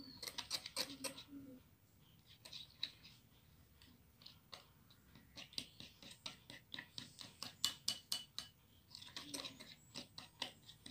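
Metal fork clinking and scraping against a glass bowl while stirring thick chocolate cake batter: a quick, irregular run of light ticks, busiest past the middle.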